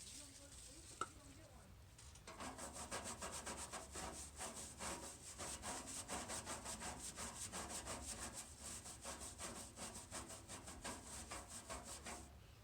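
Rapid, even back-and-forth rubbing strokes by hand on a surface, several a second, starting about two seconds in and stopping just before the end. A single sharp click comes about a second in.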